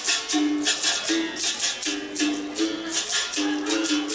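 Capoeira music: a berimbau playing its twanging notes, switching back and forth between two close pitches, with a caxixi shaker rattling in a steady rhythm.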